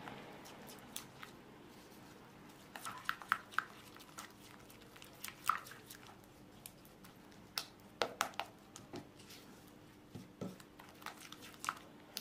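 Silicone spatula stirring and folding a thick, creamy butter-and-sugar batter in a bowl: soft squishing with irregular light clicks and taps of the spatula against the bowl's side.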